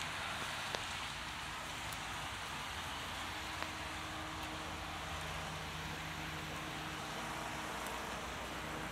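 Heavy rain falling steadily, an even hiss with single drops ticking close by now and then. A low, steady engine hum from a vehicle comes in about three seconds in.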